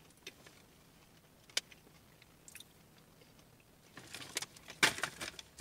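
Someone chewing a crunchy seed cracker: a few faint, scattered crunches, then a denser run of crackles about four to five seconds in.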